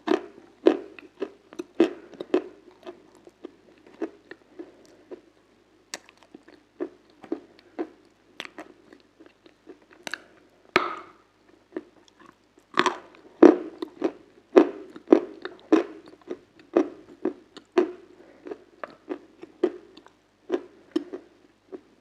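Close-miked mouth biting and chewing a hard, crunchy food: an irregular run of sharp crunches, a couple to a few per second, with a louder cluster of bites a little past halfway.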